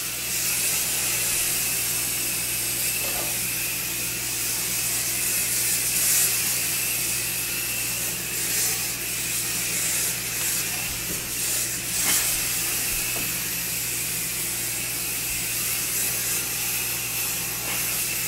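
Aerosol body spray hissing in one long continuous spray, wavering slightly in strength, being applied far longer than needed.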